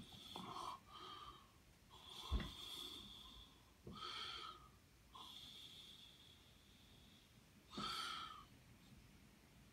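Quiet, close breathing through the nose: about six hissing breaths in and out, some held for a second or more. There is a soft knock at the start and another about two seconds in.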